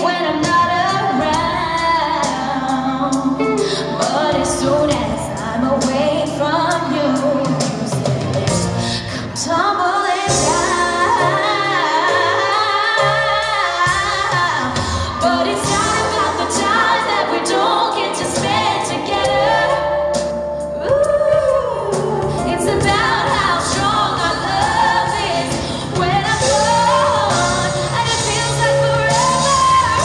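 A female pop singer singing a ballad live through a handheld microphone, backed by a live band with drums, electric guitar and keyboard.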